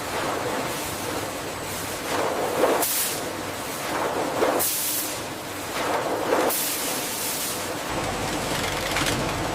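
Factory machinery running steadily, with short bursts of hissing about every two seconds.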